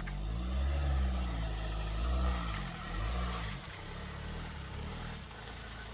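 A road vehicle going by: a low engine and tyre rumble with a slowly shifting tone, loudest over the first three seconds and easing off after that.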